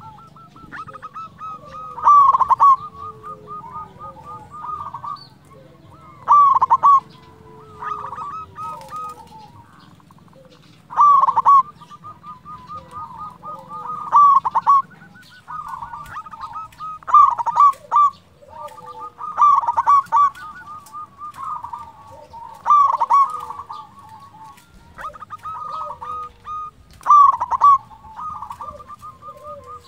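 Zebra dove (perkutut) cooing: about eight loud calls a few seconds apart, with softer rapid rolling strings of notes running between them.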